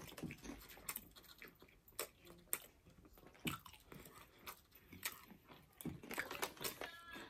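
Faint chewing of a burrito, with irregular soft clicks and smacks of the mouth.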